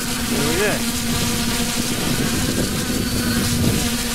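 Multirotor hexacopter's electric motors and propellers running at a steady hover, heard from on board as a constant hum over an even hiss.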